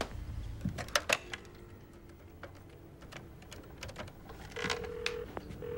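Handset of a push-button desk telephone lifted with a clatter of clicks, then a faint dial tone and soft clicks of the keypad buttons as a number is keyed in. Near the end a double ring sounds in the earpiece, two short steady tones with a brief gap, as the call rings through.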